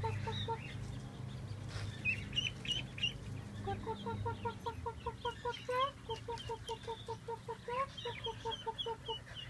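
Ducklings peeping in short, high chirps. About four seconds in they are joined by a fast, even run of lower clucking notes, roughly five a second, that lasts to near the end. A low hum underneath stops about halfway through.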